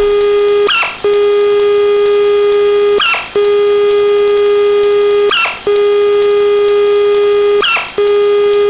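Synthesized sound effects: a loud, steady buzzing tone with many overtones, cut four times by a short chirp, about every two and a third seconds.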